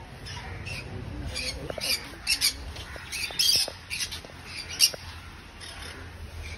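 Caged budgerigars and cockatiels squawking and chirping: short, sharp high calls in irregular clusters, with one louder call about five seconds in.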